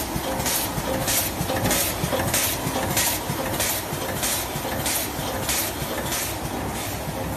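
High-speed sugar powder packing machine running, with a short hiss repeating about every 0.6 seconds over its steady mechanical clatter.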